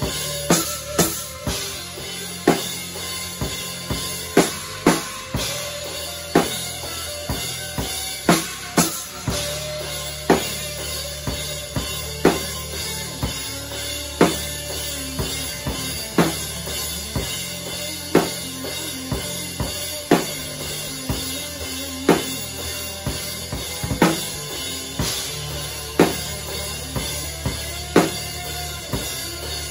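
Gretsch drum kit played in a slow, heavy stoner/doom metal groove: bass drum and snare hits with cymbal crashes, a big accent about every two seconds.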